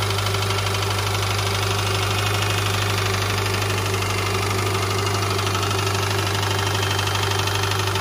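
Subaru flat-four (boxer) engine idling steadily with a fast, even metallic knocking from piston slap. The owner considers this normal for these engines and notes that it can be mistaken for rod knock.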